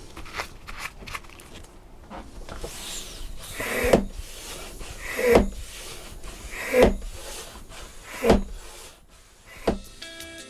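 Hand-pumped vacuum oil extractor being worked: after some handling noise, five strong pump strokes about a second and a half apart, building vacuum to draw the old engine oil up a thin tube out of a Petter McLaren B2 diesel.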